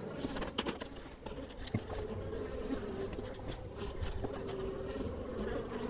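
Honey bees buzzing in a steady, wavering hum over an open hive. A few sharp clicks and knocks come in the first second or so, from the hive tool against the wooden hive parts.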